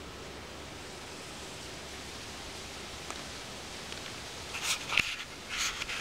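Steady outdoor hiss, then about four and a half seconds in, a few short bursts of rustling and crackling from grass and dry reed stems being brushed, with a sharp click near the five-second mark.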